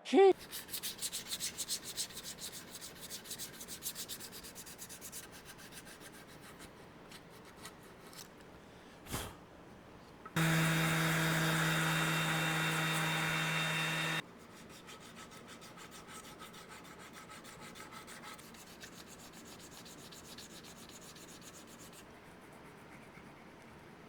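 Sandpaper rubbing on the sycamore guitar body, in quick scraping strokes at first, then lighter. Partway through, a loud steady low-pitched hum cuts in for about four seconds and stops abruptly, just after a single knock.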